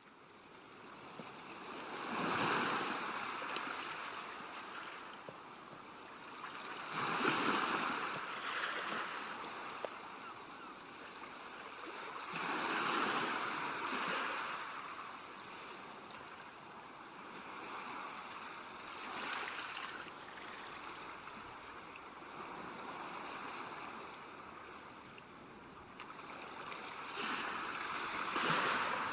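Ocean waves breaking, a surge of surf about every five or six seconds that swells and then washes back into a steady hiss of water.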